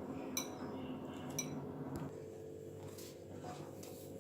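A metal spoon stirring and scraping a thick sattu paste in a bowl, with two light clinks of spoon against the bowl in the first second and a half; the stirring goes quieter after about two seconds.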